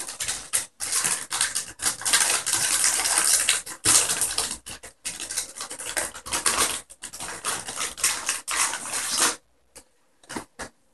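Plastic packaging crinkling and rustling in the hands as a graphics card is unwrapped: a dense run of crackles that stops about nine seconds in, followed by a few faint clicks.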